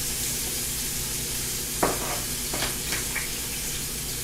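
Chopped onion and bell pepper sizzling in a small skillet, with a few sharp clicks of a utensil against the pan about two seconds in.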